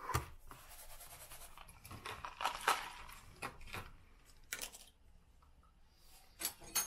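Scratchy rustling with a handful of sharp clicks and taps, as things are handled in a small room.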